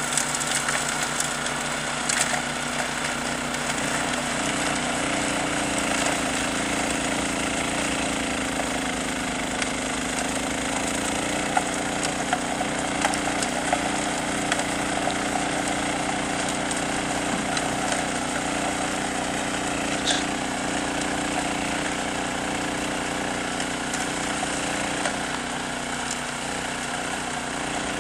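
Honda HS970 TS tracked snowblower's single-cylinder engine running steadily under load while its auger and impeller throw snow, with a few sharp clicks scattered through it.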